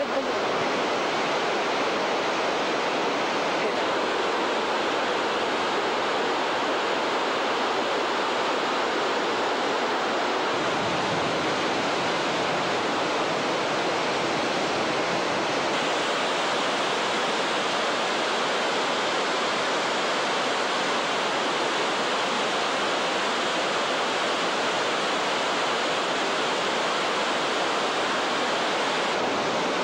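Steady, unbroken rushing of a large waterfall, with no let-up.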